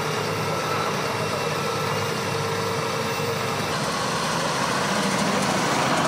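Farm tractors' diesel engines running as the tractors move slowly along a road, a steady engine noise with a few held tones. The sound shifts a little under four seconds in.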